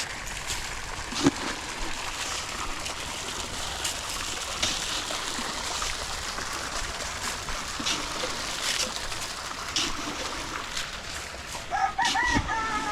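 Water running from a hose into a large water tank, with a steady splashing rush and a few light knocks. Near the end a bird calls briefly.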